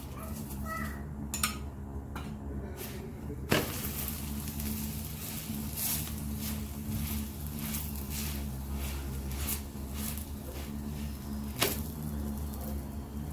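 Gobhi paratha sizzling in ghee on a hot tawa, the crackle growing stronger about three and a half seconds in, with a few sharp clicks of a metal spoon on the pan. A steady low hum runs underneath.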